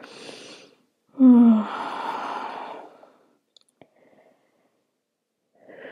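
A woman breathing hard after exertion: a short breath, then a loud voiced sigh out about a second in, falling in pitch, as she catches her breath. Two faint clicks near the middle, and another breath near the end.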